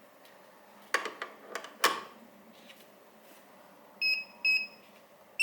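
Two sharp clicks about one and two seconds in, then near the end a Retekess TD164 guest pager starts its call alert with two short high beeps, signalling that it is being paged.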